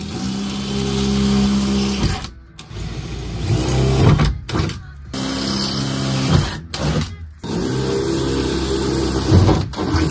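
Power drill running in about four bursts of a second or two each with short pauses between, boring pilot holes through the steel side panel of a van.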